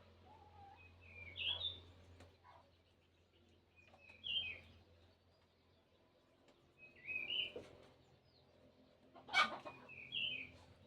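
Chickens giving short, high, wavering chirps, one about every three seconds. A sharp knock about nine seconds in is the loudest moment.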